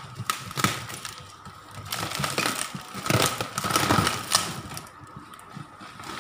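Plastic wrapping crinkling and rustling as it is pulled off a large pot, with sharp crackles, busiest from about two to four and a half seconds in and quieter near the end.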